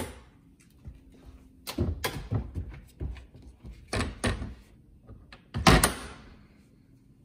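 Heavy-duty dog crate's stainless paddle latch being worked and its door handled: a string of clicks and knocks, the loudest a thunk near the end.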